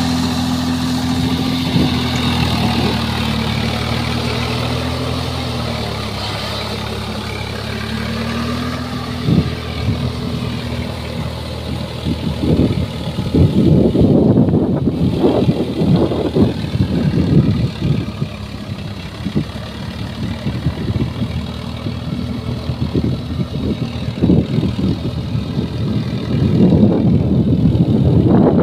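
Swaraj 744 FE tractor's three-cylinder diesel engine running steadily under load while driving a rotavator through flooded paddy mud. Its pitch sags a little about a quarter of the way in, then recovers; from about halfway, uneven rumbling bursts sit over the engine.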